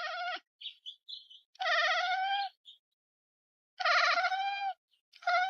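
An animal calling four times, each call a steady, slightly wavering note just under a second long, with a few short high chirps between the first two calls.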